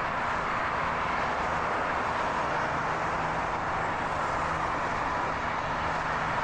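Steady highway traffic: a continuous rush of tyre and engine noise from passing vehicles, with a faint low hum under it.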